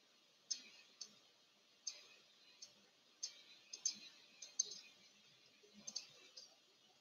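Faint, sharp clicks at irregular intervals, about a dozen in all, with near silence between them.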